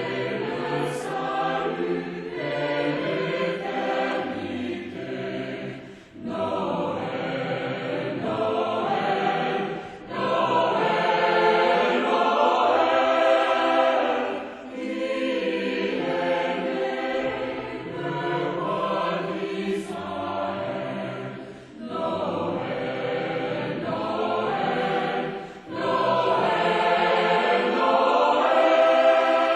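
A choir singing in many voices, in phrases a few seconds long with brief pauses between them.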